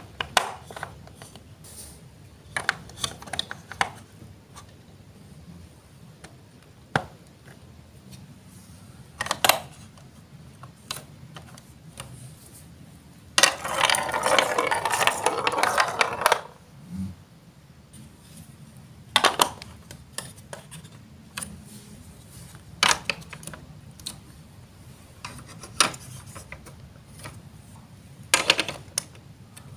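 Plastic Lego Duplo blocks and marble-run track pieces clicked and knocked into place on a baseplate, in scattered single clicks. About 13 seconds in, a marble rolls along the plastic track for about three seconds.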